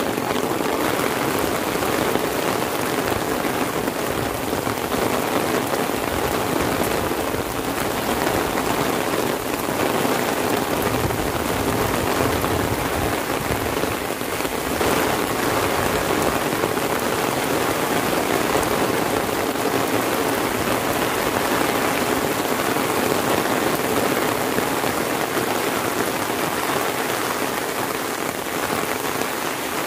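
Heavy rain falling steadily on an umbrella held overhead and on a wet paved lane, a constant even hiss of dense drops.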